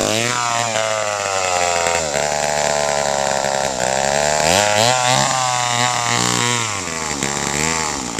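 Wizard two-stroke chainsaw engine running, revving up and down unevenly, its pitch sagging and recovering several times. The owner takes it to be barely getting enough gas, through a cracked or split fuel line.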